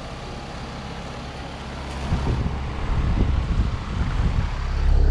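Residential central air conditioner condensing units running: a steady low mechanical hum that grows louder about two seconds in, with irregular low rumbling buffets. Near the end it becomes a loud, steady low roar as the microphone comes close to a running unit.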